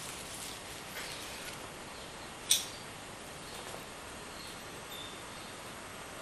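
Palette knife working acrylic paint on canvas: faint scraping strokes and small clicks, with one sharp click about two and a half seconds in, over a steady hiss.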